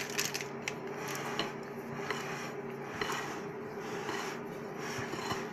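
Silicone spatula scraping and folding thick egg-and-flour batter in a glass bowl, a run of soft rhythmic scraping strokes about two a second, with the bowl rubbing as it is turned.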